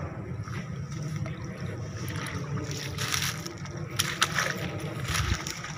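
Footsteps and rustling through wet, swampy undergrowth, with a few sharper crunches about three and four seconds in, over a steady low rumble on the microphone.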